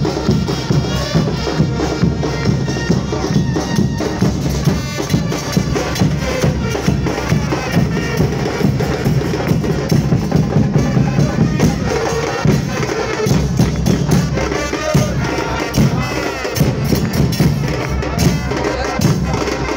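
A street band of big bass drums and brass (trumpets and trombones) playing a steady, driving rally rhythm, with crowd voices mixed in.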